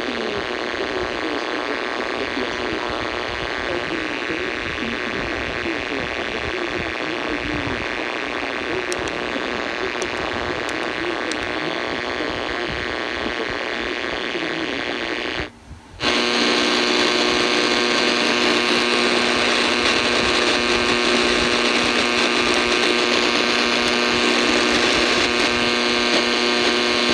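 V115 portable AM radio giving out a steady hiss of static, with faint wavering tones and no station heard. Near the middle it cuts out for a moment as it is retuned, then a louder steady buzz of interference takes over.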